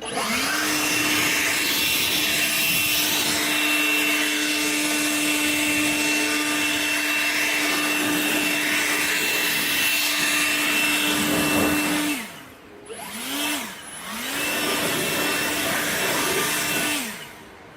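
High-speed rotary power tool cutting metal: it spins up to a steady whine under a gritty hiss and runs for about twelve seconds, then spins down. It gives a short blip, then runs again for a few seconds and spins down near the end.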